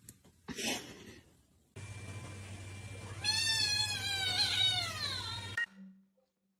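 A cat giving one long, drawn-out meow that falls in pitch at the end, over a steady background hum. A short rustling sound comes just before it.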